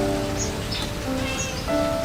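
Background music with sustained notes that change pitch every half second or so, over a steady hiss.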